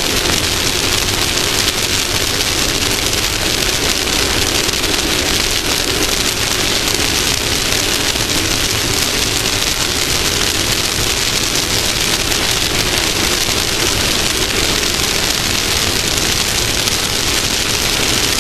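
Off-road race vehicle running fast over dirt: a loud, steady rushing hiss of wind and rough-ground noise on a mounted camera, with the engine's hum underneath, plainer in the first half.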